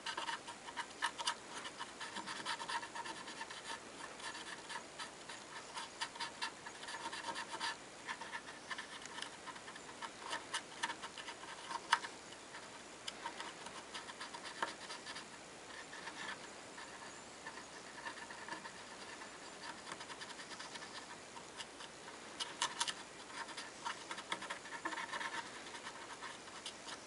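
A cotton swab damp with acetone scrubbing over a cello's varnished wooden top, giving faint, irregular scratchy strokes with a few sharper ticks.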